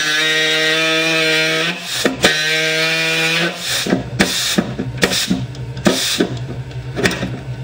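Pneumatic body saw, an air-powered reciprocating saw, cutting through sheet metal: a loud, steady, pitched buzz, cut off briefly about two seconds in, then stuttering on and off through the second half.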